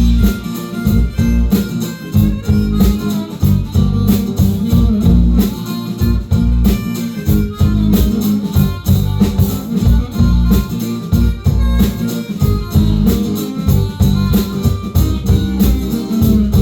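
A live band playing an instrumental passage between sung verses, with a steady beat and heavy bass.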